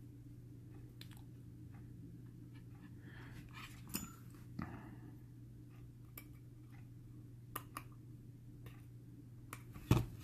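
Small scattered clicks and scratchy rustles of cotton wick and metal tweezers being worked into a vape coil on an atomizer deck, with a sharper knock near the end, over a steady low hum.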